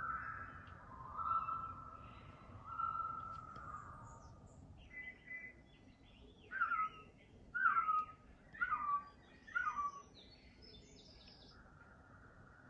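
Birds calling on a nature film's soundtrack: a few drawn-out whistled notes in the first few seconds, then four short falling calls about a second apart around the middle, over a faint background hiss.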